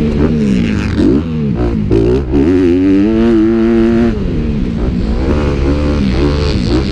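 Motocross dirt bike engines racing, revving up and down in pitch, with more than one bike heard at once.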